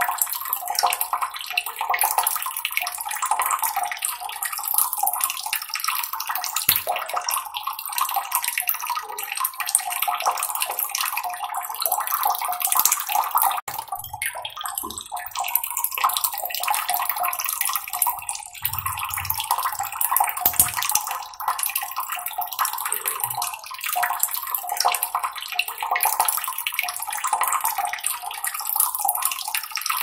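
Steady trickling, babbling water, an unbroken splashing patter.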